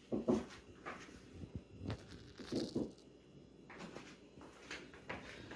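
Quiet kitchen handling: a few soft, irregular knocks, clicks and rustles of bowls and containers being set down and picked up beside a pot of raw chopped vegetables.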